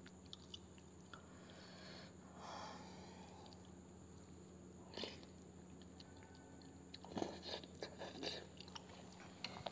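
Faint chewing of hot soupy instant noodles, with a short run of quick slurps about three-quarters of the way through as noodles are sucked in off a fork.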